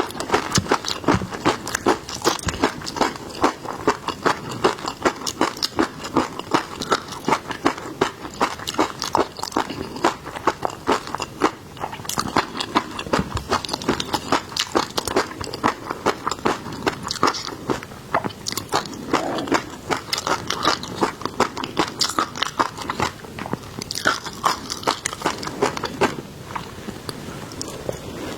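Person biting and chewing raw seafood, with dense crunching and crackling clicks several times a second and no break.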